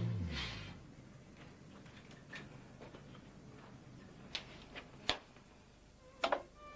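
The tail of music fades out at the start. After that there are a few scattered sharp clicks and knocks over quiet room tone, the loudest a double knock near the end.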